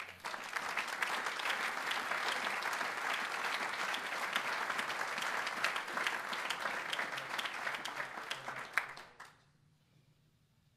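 Audience applauding, a dense patter of many people clapping that dies away about nine seconds in.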